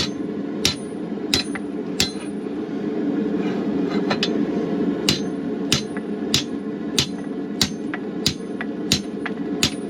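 Hand hammer striking hot steel on an anvil, about three blows every two seconds, each with a bright ring, with a pause of about two seconds partway through. A gas forge burner runs steadily underneath.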